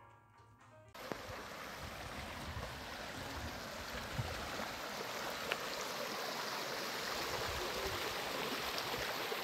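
Music cuts off about a second in, giving way to a shallow, clear hill river running over stones in a small riffle: a steady rushing and splashing of water.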